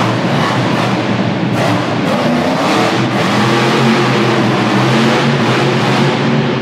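Monster truck engine running loud and revving as the truck drives across a dirt arena, its pitch rising and falling.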